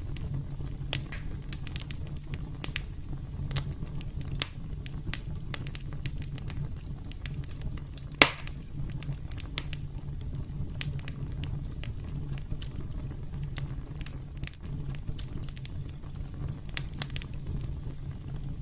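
Wood crackling and popping in a campfire, with scattered sharp snaps over a steady low rumble of the flames. One much louder pop comes about eight seconds in.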